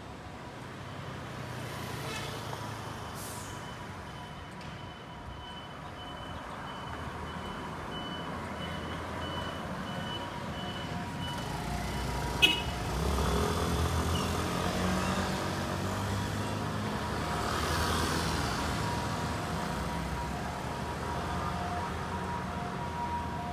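Road traffic at a city intersection: scooter and car engines rumbling. About halfway through comes a single sharp click, after which the engine noise builds and stays louder as traffic moves through. A faint steady high tone runs underneath.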